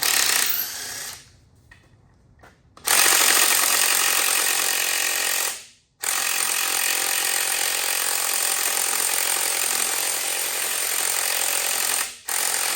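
Power impact wrench hammering bolts loose on an LS1 engine teardown, run in four bursts, the longest about six seconds.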